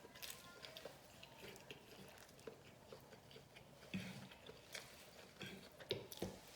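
Quiet close-up chewing and mouth sounds of a person eating salmon, shrimp and rice, with scattered small clicks and a few stronger ones about four and six seconds in.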